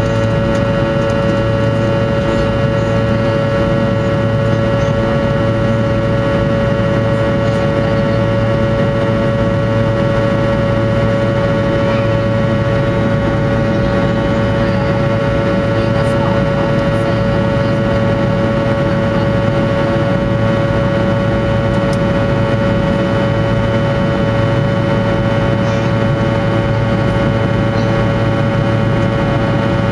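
Fokker 100 cabin noise: the steady drone of the rear-mounted Rolls-Royce Tay turbofans, with a strong steady whine and several higher tones over a low rumble, heard inside the cabin.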